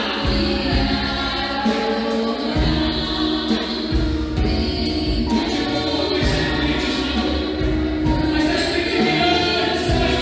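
Gospel worship music: a group of voices singing over a band with a steady beat.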